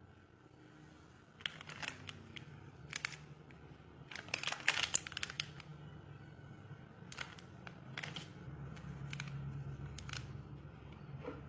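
A foil instant-coffee sachet being handled and crinkled by hand: sharp rustles and crackles, densest about four to five seconds in, with a few more later. Beneath it runs the low hum of the switched-on electric kettle heating, which grows a little louder in the second half.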